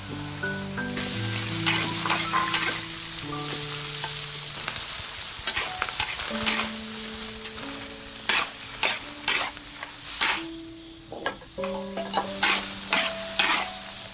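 Food stir-frying in a hot pan: oil sizzling, with a metal spatula repeatedly scraping and clacking against the pan. Soft background music plays underneath.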